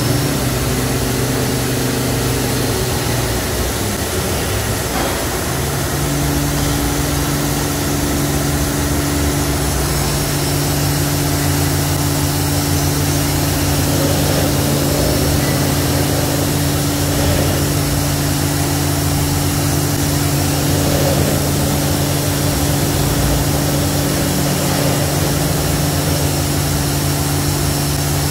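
Hardinge-Bridgeport GX 1600 CNC machining center's spindle running free with a steady hum and no cutting. About four to six seconds in, its pitch shifts up as the spindle changes to a higher speed, then it runs steady again.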